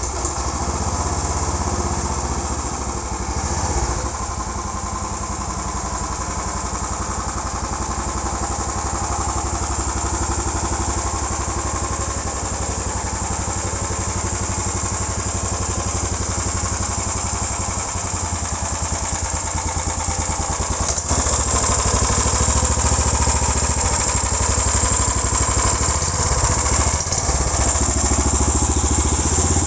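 Small generator (genset) engine on a motorbike-style bicycle running steadily, getting louder about two-thirds of the way through.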